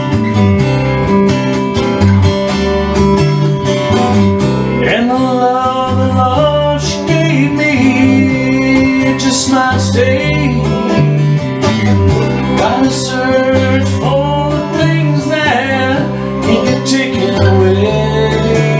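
Country-style song: acoustic guitar strumming over a steady bass line, with a lead melody coming in about four seconds in.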